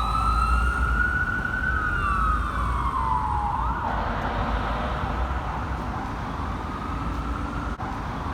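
Fire engine siren wailing, its pitch rising and falling slowly, with a sudden jump up about four seconds in, over the low rumble of the truck on the road.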